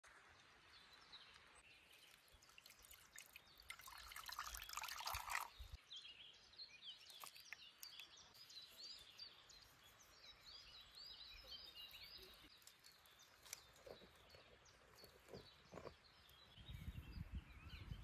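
Faint outdoor ambience with small birds chirping in the background, a brief hiss about four seconds in, and a low rumble near the end.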